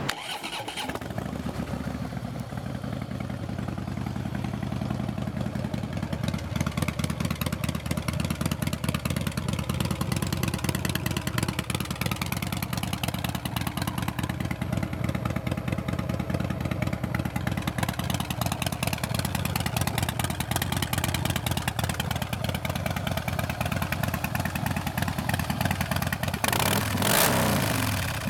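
A Harley-Davidson CVO Breakout's 110-inch Screamin' Eagle V-twin idling with an even, loping pulse through Vance & Hines big radius pipes, which are loud. Near the end the throttle is blipped once, the revs rising and falling.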